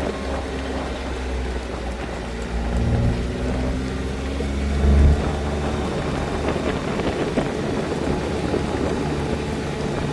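Steady low rumble of a car moving slowly, engine hum and road noise, swelling briefly about halfway through.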